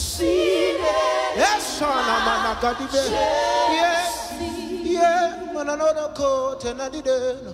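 A group of voices singing a gospel worship song together, with long held notes that waver in vibrato.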